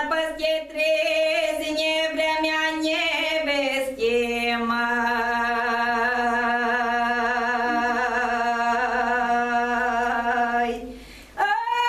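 A woman singing a slow Romanian folk song solo, without accompaniment. A first phrase drops at about four seconds into one long held note with vibrato that lasts about seven seconds and breaks off near the end.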